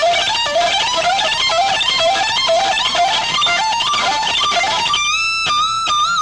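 Electric guitar playing a fast repeating lead run of rising note groups, about two groups a second. About five seconds in it settles on a held high note with slight vibrato.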